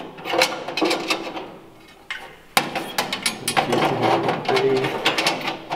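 Stainless-steel flame tamers of a gas grill clattering and scraping against the burner chamber as they are hooked into place, a run of metal clicks and knocks with the sharpest knock about two and a half seconds in.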